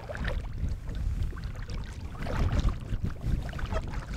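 Wind buffeting the microphone in a gusty, fluttering rumble, with water lapping and splashing against a kayak or bank in short scattered crackles.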